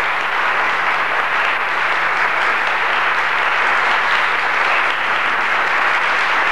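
Audience applauding steadily, a dense, even clapping that neither builds nor fades, with a faint low hum underneath.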